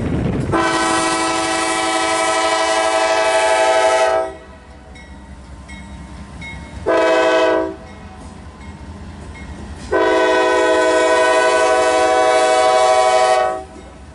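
Air horn of a passing Norfolk Southern GE freight locomotive, sounding a multi-note chord in a long blast, a short blast and another long blast, over the rumble of the locomotives going by.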